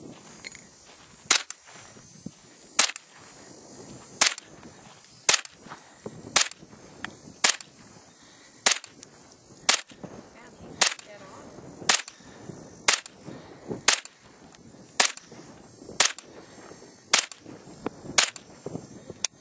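A gun fired shot after shot at a steady pace, about once a second, some seventeen sharp cracks in all.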